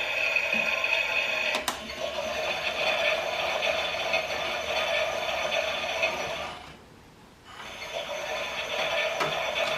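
Toy Klein Miele washing machine running, with a steady buzzing hum from its small drum motor. There is a click about a second and a half in. The motor stops for about a second near the middle, then starts again, like a wash tumble pausing and restarting.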